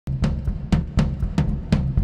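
Music starting with a steady drum-kit beat, bass drum and snare hits about every half second over a low bass line.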